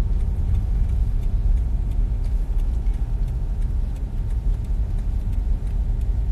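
Steady low rumble of a car's road and engine noise heard from inside the cabin while driving, with faint ticking over it.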